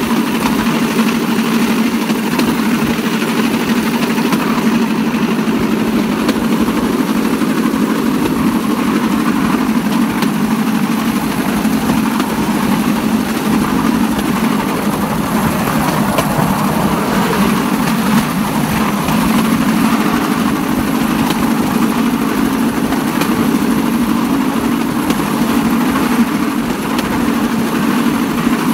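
Small engine of a bamboo train (norry) running steadily under way as the platform rolls along the rails, with a constant drone and no change in speed.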